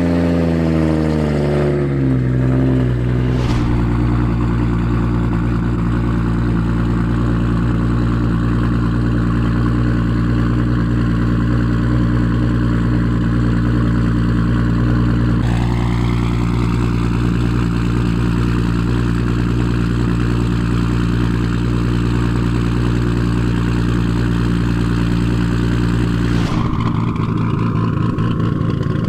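Toyota 2JZ-GTE straight-six with GSC S2 cams and a Tomei titanium exhaust idling at the tailpipe, on its cold fast idle after start-up: the revs waver and settle down over the first few seconds, then hold steady. Near the end it cuts to the warm idle, which sounds lower and choppier.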